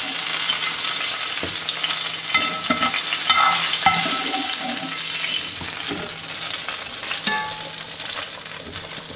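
Butter sizzling steadily in a hot frying pan while a wire spider skimmer stirs a beef stew in a cast-iron casserole, with a few light metal clinks about three seconds in.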